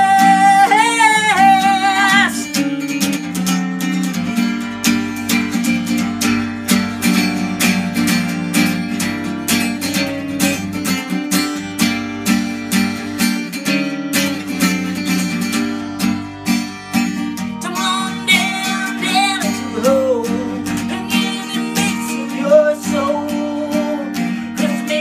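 Archtop acoustic guitar strummed steadily through an instrumental break, the end of a long held sung note with vibrato fading out in the first two seconds. Singing comes back in over the strumming near the end.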